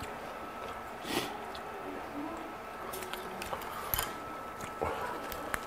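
Faint, scattered eating and food-handling noises close to the microphone: a few soft clicks and small mouth sounds.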